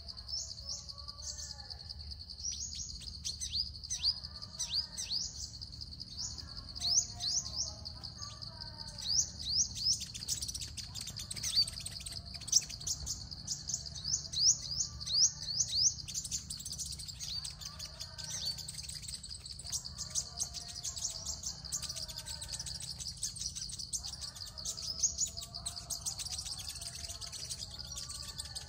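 Small birds calling. Dense, rapid, high-pitched chirps come thickest and loudest in the middle. A lower warbling phrase repeats every two seconds or so, all over a steady high-pitched tone.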